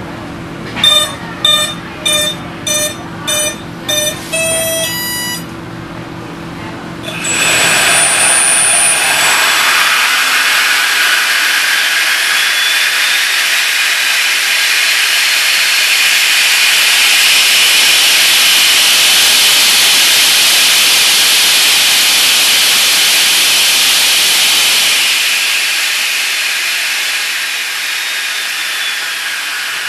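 A speed controller beeps a quick row of tones before a 70 mm electric ducted fan, driven by an F2839 KV1950 outrunner motor on a 6S LiPo, spins up about seven seconds in. The fan then runs at high speed with a very loud jet-like hiss and whine, and it winds slowly down near the end.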